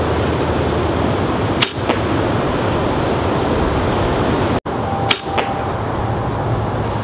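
Wind buffeting the microphone, with a single sharp snap of a compound bow being shot about one and a half seconds in. Two short clicks follow later on.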